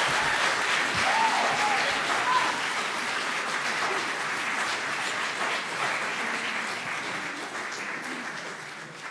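Congregation applauding, the applause gradually fading away near the end.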